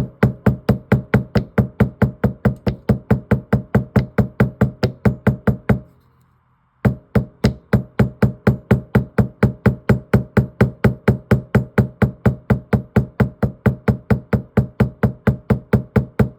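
A small hammer peening a straight razor's scale pin on a metal block, in rapid even taps about four or five a second, each with a short metallic ring. The taps stop for under a second about six seconds in, then carry on.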